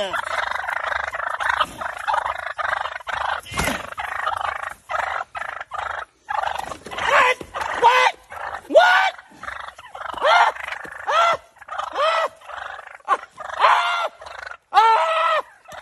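Wild turkey toms gobbling again and again. For the first few seconds the gobbles overlap into a dense chorus, then they come one after another about once a second.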